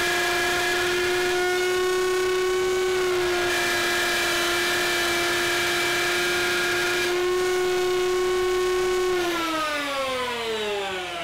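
Router with a half-inch plunge bit running at full speed while cutting a pocket in a wooden stock; its high, steady whine shifts slightly in tone a few times. About nine seconds in it is switched off and the pitch falls steadily as the motor spins down.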